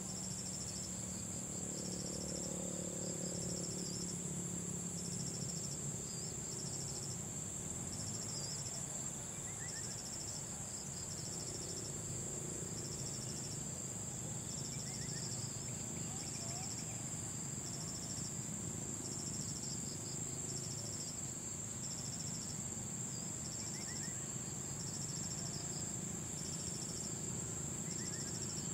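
Insects calling: one high-pitched trill holds steady while another pulses in a regular rhythm, about one pulse a second, over a low steady background rumble.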